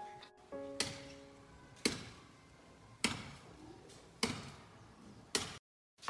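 Five sharp knocks, evenly spaced about a second apart, over a quiet background, then an abrupt drop to total silence near the end.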